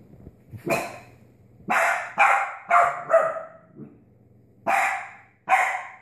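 A puppy barking, about seven sharp barks in quick, irregular bursts, some coming in close pairs.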